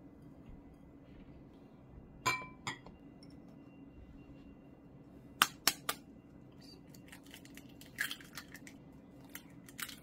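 Ceramic dishes clinking on the table twice, with a short ring, about two seconds in. Then eggs are cracked on the rim of a ceramic bowl: three sharp taps about halfway through, followed by a run of small crackles and taps as the shells are broken open.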